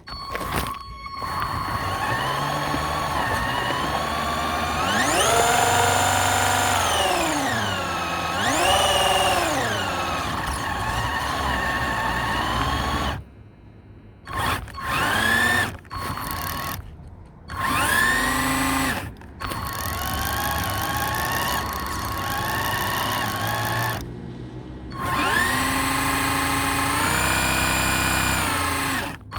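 Electric motor of an RC truck whining, rising and falling in pitch again and again as the throttle is worked. The sound cuts out abruptly several times for under a second.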